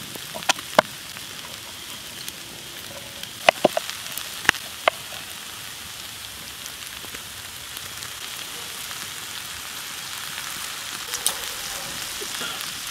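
Food frying in a cast-iron skillet over campfire coals, a steady sizzle. There are a few sharp taps in the first five seconds.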